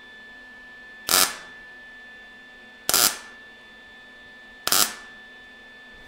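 MIG welder stitch-welding a butt joint in thin sheet steel: three short welds about two seconds apart, each a brief burst of arc noise.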